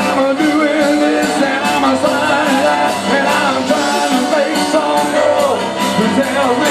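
Live music: a man sings into a microphone over piano-keyboard chords, with a drum kit keeping a steady beat.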